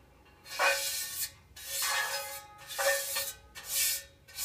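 Brush stroking oil across a metal microwave tawa: about five rubbing strokes, roughly one a second, with short pauses between them.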